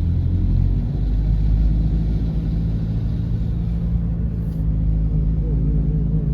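Car engine running with a steady low rumble while the car is driven along a flooded road.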